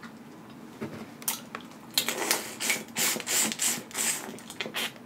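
Boiled crawfish shell crackling and snapping as it is broken apart and peeled by hand close to the microphone, a few sharp clicks at first, then a quick run of crackles and wet eating sounds at the mouth.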